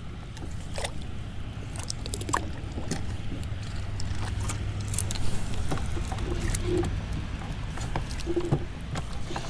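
Steady low hum on a fishing boat, with scattered light clicks and taps throughout.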